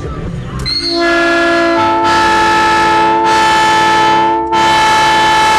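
Aftermarket train horn fitted to a vehicle, blasting a chord of several steady tones. It starts about a second in and holds long, with a short break near the end before it sounds again.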